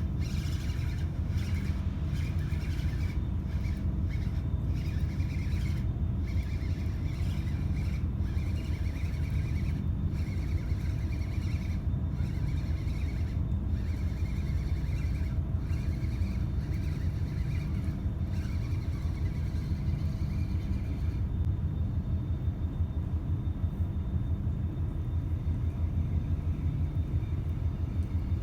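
Wind buffeting the microphone, a steady low rumble that flutters and never lets up. A fainter, higher crackling hiss sits over it and drops away about three-quarters of the way through.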